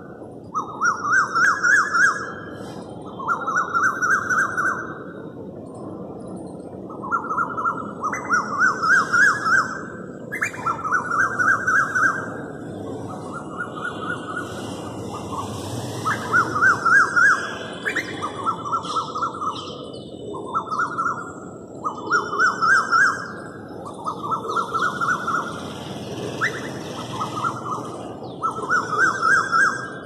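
A cuckoo crying over and over: shrill bursts of rapid notes, each about a second long and rising a little in pitch, repeated every couple of seconds with short pauses. Small birds chirp faintly behind it.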